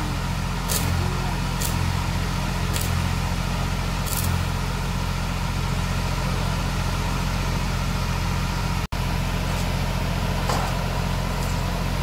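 Stick (arc) welding on a steel frame: the arc's crackling hiss over the steady low hum of the welding power source running. A few sharp ticks come in the first four seconds, and the sound cuts out for an instant about nine seconds in.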